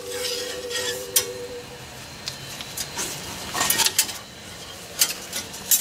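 Metal tools and car parts clinking and tapping in irregular clicks as hands work on the front suspension and brake hardware. A faint steady hum fades out about two seconds in.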